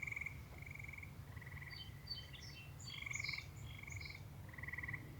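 Faint frogs calling: short trilled calls repeated about every half second, with a few brief higher chirps in the middle.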